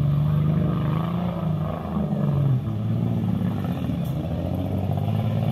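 Off-road 4x4 competition vehicle's engine revving up and down as it works through a muddy course.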